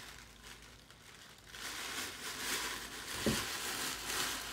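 Packaging crinkling and rustling as a pair of shoes is unwrapped by hand, starting about a second and a half in, with a soft thump about three seconds in.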